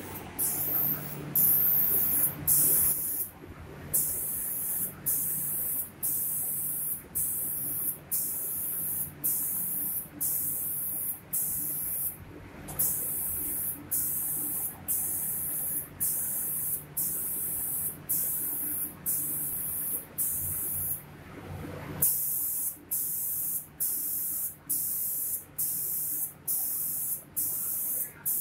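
Automatic spray gun of a cabinet-door painting machine hissing in regular pulses, about one spray a second, over a steady low machine hum.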